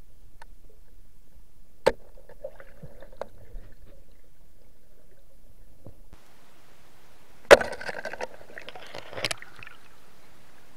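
Heard underwater: a few scattered knocks and clicks, then one loud, sharp knock about seven and a half seconds in, followed by about two seconds of crackling, bubbling water and another knock.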